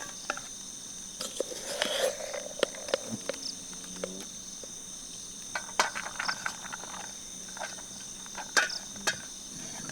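Steady chorus of night insects, several high tones held throughout. Scattered sharp clicks and knocks break in, loudest about six seconds in and again near the end.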